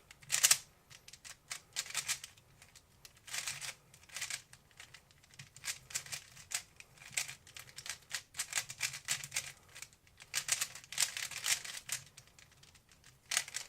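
3x3 Rubik's cube being turned fast in a timed speed solve: rapid runs of plastic clicking and rattling as the layers turn, in bursts with short pauses between.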